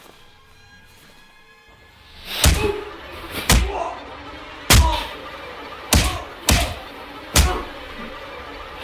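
A beating with the fist: six heavy punch hits, film sound-design style, land on a man about once a second, starting about two seconds in, over a low music score.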